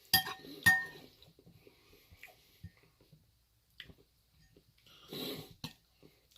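A metal utensil clinking twice against a dish, about half a second apart, each strike ringing briefly; then small, faint eating noises.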